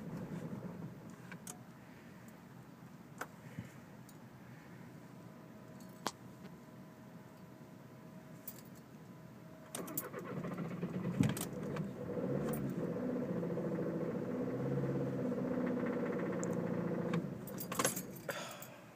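A 2011 VW Jetta TDI diesel being turned over with the key: keys jangle and click, then the engine cranks steadily for about seven seconds and stops without staying running, a failed restart after it had started and died, which the owner suspects is a fuel delivery problem.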